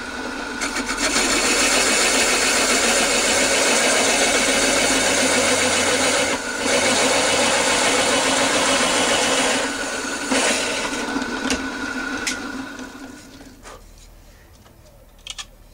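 Drill press driving a 64 mm wood hole saw through a block of wood, with a steady rasping cut that briefly lets up about six seconds in. The saw cuts easily because relief holes were pre-drilled to clear the chips. The cut gets lighter after about ten seconds and dies away around thirteen seconds, with a couple of light clicks near the end.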